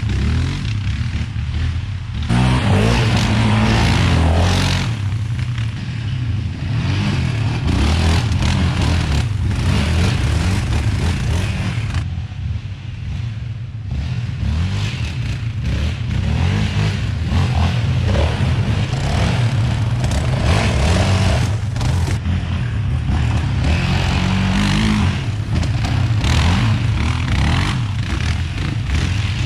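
Yamaha Raptor 700 sport ATVs' single-cylinder four-stroke engines revving and accelerating along a dirt trail, rising and falling in level as the quads go by.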